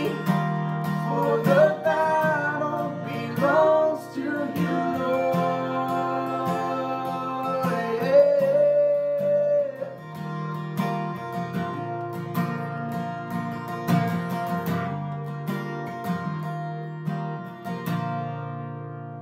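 Acoustic guitar strummed while a man and a woman sing a worship song. The singing stops about halfway through, and the strumming carries on and fades out near the end.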